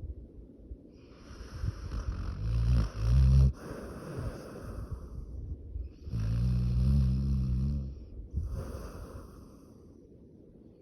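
A sleeping dog snoring: slow breaths with two loud, buzzing snores, one about three seconds in and another about six seconds in, each framed by breathy hisses.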